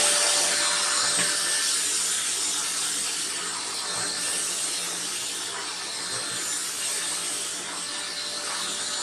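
OSMON OS 1400BL bagless vacuum cleaner running with its brush attachment, sucking fine ash off a desk: a steady airy rush with a faint whining tone that eases slightly in loudness.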